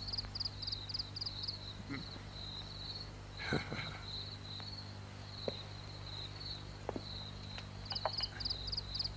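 Crickets chirping in a steady run of quick trills, over a faint low hum. There is a brief soft rustle about three and a half seconds in, and a few light taps near the end.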